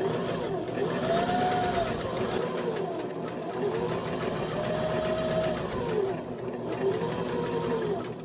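Domestic sewing machine stitching a fabric seam, running steadily with a whine that rises and falls in pitch a few times.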